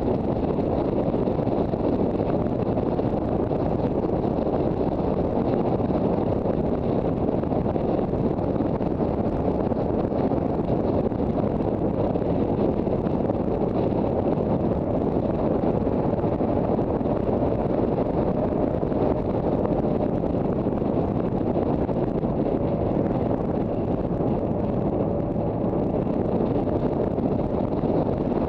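Steady wind rush over the microphone of a Honda CB400 Super Bol d'Or motorcycle under way, with the bike's inline-four engine running beneath it.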